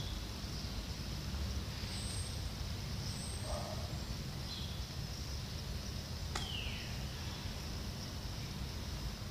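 Steady outdoor background noise, a low rumble with a faint high hiss, with a few short high bird chirps and one falling whistled call about two-thirds of the way through.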